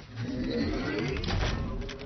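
Background music with wavering pitched tones and a few short clicks.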